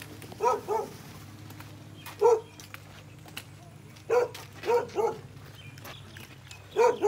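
A dog barking repeatedly, about seven short barks, some in quick pairs, at irregular intervals, over a faint steady low hum.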